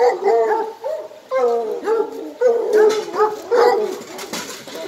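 Several bear hounds barking and baying over one another in quick, repeated calls, excited at feeding time.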